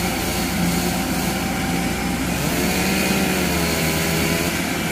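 Rice combine harvester's diesel engine running steadily under heavy load while the machine struggles, bogged in deep mud. A wavering higher tone rises and falls over the drone from about halfway through.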